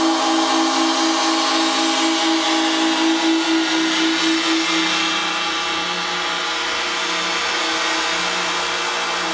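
PVC-pipe sound sculpture with servo-worked flaps at the pipe mouths, giving a steady rushing hiss under several held, droning tones that pulse about five times a second. The upper tones fade out about three and a half seconds in, leaving a broader hiss and a lower pulsing tone.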